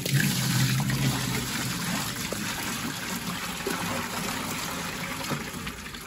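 Water poured from a plastic pot into a plastic fridge-box liner, splashing onto the water already in its bottom: a steady pour that slowly gets softer.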